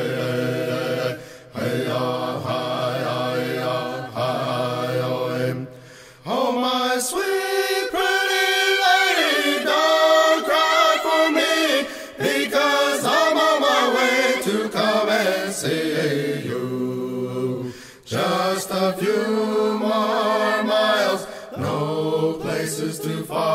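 Chanted singing as background music: voices holding long notes on wordless syllables, in phrases a few seconds long with brief breaks between them.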